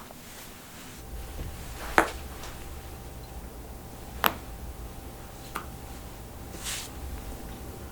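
Human joints cracking: three sharp pops, the loudest about two seconds in, another about four seconds in and a smaller one about five and a half seconds in. A brief soft hiss follows near the end.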